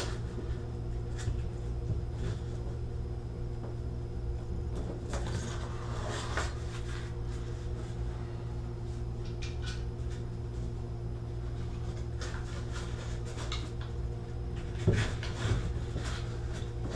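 Scattered light knocks and rustles of a hand handling a threaded-on bathtub spout, with one louder knock near the end as the spout is gripped again. A steady low hum runs underneath.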